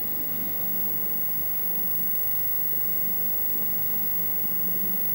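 Steady electrical hum and hiss with faint, constant high-pitched tones, with no music playing.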